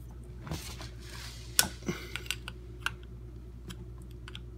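Light clicks and taps from a dishwasher water inlet valve and its brass hose fitting being handled, the sharpest about one and a half seconds in, with a short soft hiss-like noise from about half a second to a second in.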